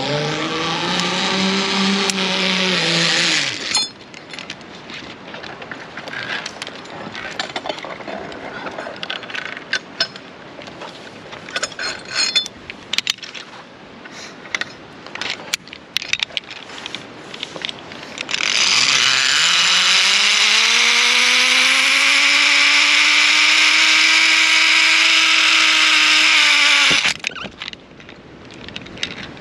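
A zipline trolley's pulleys running along the steel cable, making a whine. It is heard twice: briefly at the start, then for about eight seconds from two-thirds of the way through, rising in pitch as the rider gathers speed before stopping abruptly. In between come metal clicks and the handling of carabiners and trolley on the cable.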